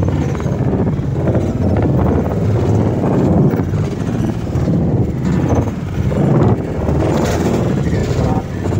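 Road traffic noise: cars, a van and motor scooters driving past close by, a dense low rumble with small swells.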